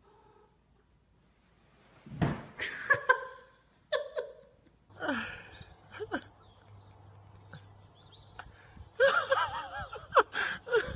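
Person laughing in quick repeated bursts near the end, after a thump about two seconds in and a few short exclamations.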